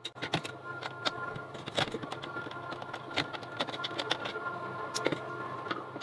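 Screwdriver and metal heat sink clicking and knocking as a CPU heat sink's screws are turned loose and the heat sink is lifted off a server motherboard: an uneven string of light clicks and taps over a faint steady high tone.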